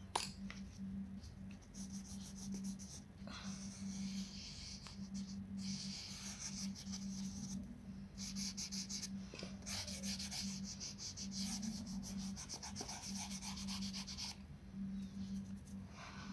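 Coloured pencil scratching across a colouring-book page in quick back-and-forth shading strokes. It comes in several stretches, the longest about four seconds, over a steady low hum.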